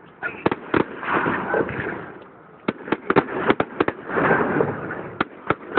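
Fireworks display: clusters of sharp bangs and rapid crackles, about a second in, around three seconds in and near the end, with rushing, fizzing noise between them.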